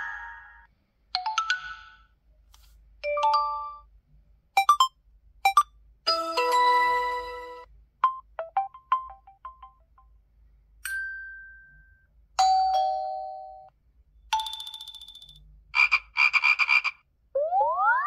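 ZTE Axon 40 Ultra phone tones played one after another: about a dozen short electronic chimes, pips and beeps, each a second or less, with brief gaps between them. Near the end come quick rising sweeps.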